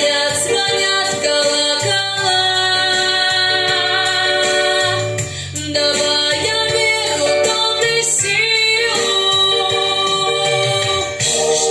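Female voice singing long held notes over backing music.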